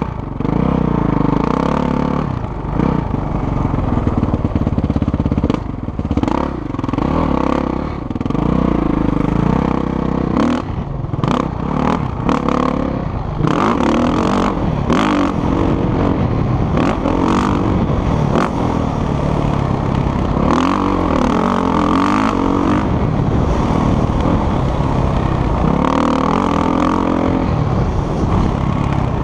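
Dirt bike engine heard from the rider's helmet camera, revving up and falling back again and again as the bike accelerates, shifts and slows for turns on a motocross track. Sharp knocks and rattles break in, thickest about ten to thirteen seconds in.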